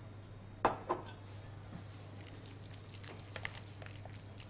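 Two sharp knocks about a second in, then faint soft squishing and small clicks as chicken strips are mixed by hand into a wet egg-and-chili-paste marinade in a glass bowl.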